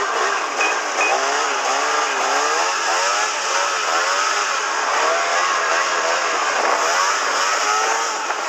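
Snowmobile engine revving up and down again and again, its pitch rising and falling about once a second as the throttle is worked, over a steady rushing noise of the track and snow.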